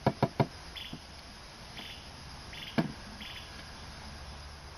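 Crickets chirping in short pulsed chirps about once a second. A quick run of three sharp knocks comes right at the start, and one more about three seconds in.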